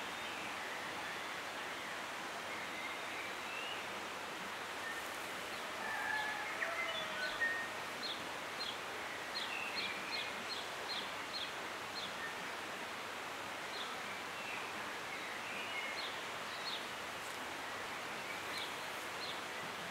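Outdoor ambience: a steady background rush with small birds calling over it, a burst of varied song about six seconds in followed by a string of short, high, repeated chirps.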